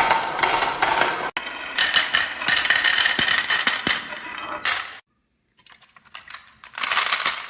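Marbles rolling and clattering along a marble run's tracks, dense rattling with many small clicks. It breaks off at sudden cuts, with a brief silence about five seconds in before the clattering starts again.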